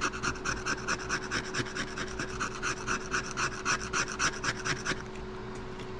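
Rapid, evenly repeated scraping strokes of a tool across a cell phone's frame, scraping off old rubbery display adhesive. The scraping stops about five seconds in.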